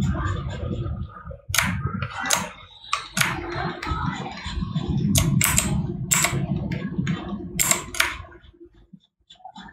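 Sharp clicks of computer input devices at a desk, about nine scattered over several seconds, over a low steady hum that cuts off near the end.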